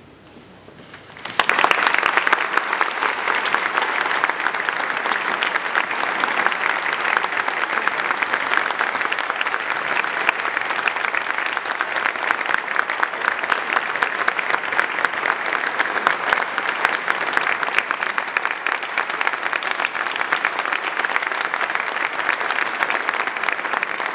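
A brief hush, then audience applause breaks out suddenly about a second in and continues steadily.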